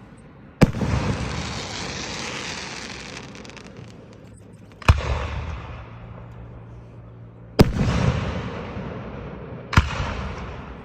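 Display fireworks shells bursting at close range: four loud bangs a few seconds apart, each followed by a long fading rumble.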